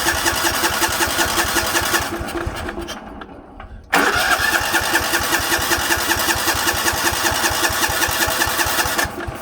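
Sears 10/6 lawn tractor engine being cranked by its electric starter in two long bursts, with a pause in between, turning over rhythmically without catching: fuel is not reaching the engine.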